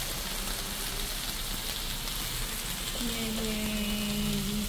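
Beef short ribs sizzling on a tabletop grill pan, a steady frying hiss. About three seconds in, a voice in the background holds a long note over it.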